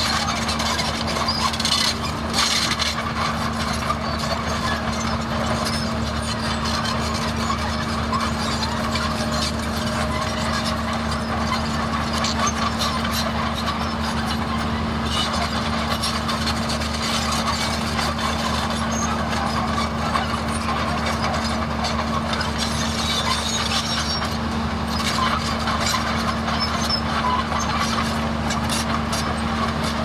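Komatsu D31A crawler bulldozer's diesel engine running at a steady pitch, with scattered metallic clinks from the machine and its steel tracks.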